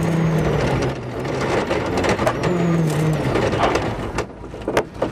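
Rally car's engine running at steady low revs as the car swerves off the road just past the flying finish. Rough crunching noise goes with it. The engine note drops away about a second in and comes back, with a few sharp knocks near the end.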